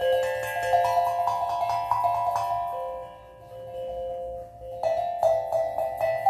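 Steel tongue drum being played: a run of struck notes that ring on and overlap. The notes thin out and soften around three seconds in, then pick up again about five seconds in.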